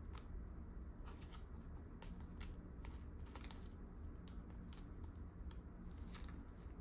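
Faint rustling and light clicks of a thick trading card being handled and slid into a plastic card sleeve, over a steady low hum.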